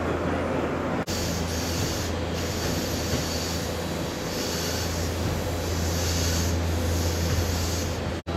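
Fujikyu limited-express train heard from its front cab: a steady low hum under rail and wheel noise, with a hiss that rises and falls in the higher range.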